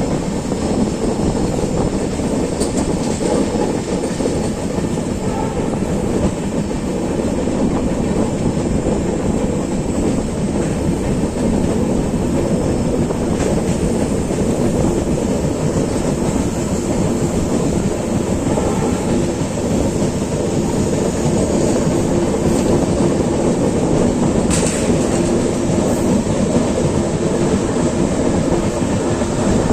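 Express passenger train of LHB coaches running steadily over the rails at speed: the continuous sound of wheels on track, with a few faint clicks.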